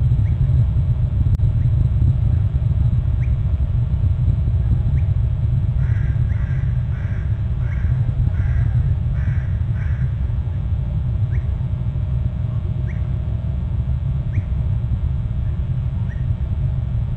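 Steady low rumble of wind on the outdoor microphone. About six seconds in, a bird gives a run of seven calls, about two a second. Short faint chirps come every second or two.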